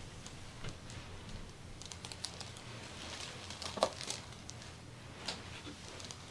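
Faint scattered clicks, taps and rustling of hands working over skin and clothing during a massage, with one sharper click a little past halfway.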